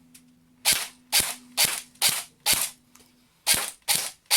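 CYMA CM507 M4A1 airsoft electric gun (AEG) firing single shots on semi-automatic: five sharp cracks about two a second, a pause of about a second, then three more in quicker succession.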